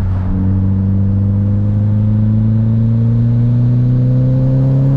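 Chevrolet HHR SS's turbocharged 2.0-litre four-cylinder engine pulling under acceleration, its note rising slowly and steadily through one gear.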